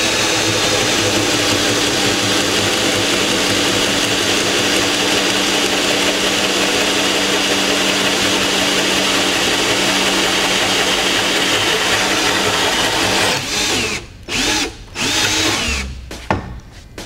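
Cordless drill driving a hole saw into a bamboo tube held in a mitering jig, running steadily under load as it cuts the miter. About thirteen seconds in it stops, gives a few short bursts as the cut finishes, and stops near the end.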